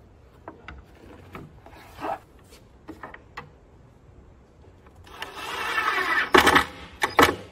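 Light knocks and rubbing as a wooden lazy susan shelf is set in place, then a cordless drill drives a screw through the shelf's centre hole into the cabinet's bottom panel from about five seconds in, its motor whine building and broken by a few loud sharp clicks near the end.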